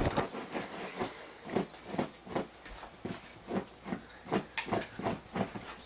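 Bedlington terrier panting rapidly and rhythmically, about two to three breaths a second, during labour contractions.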